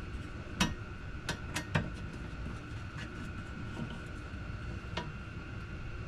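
A handful of sharp, scattered clicks and knocks of tools and plastic parts being handled while a door pocket is screwed into a vehicle door, over a steady background hum with a faint high whine.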